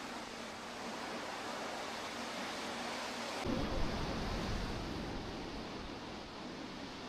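Lake Superior waves breaking on a sandy beach, a steady wash of surf. About halfway through, wind starts buffeting the microphone, adding a low rumble.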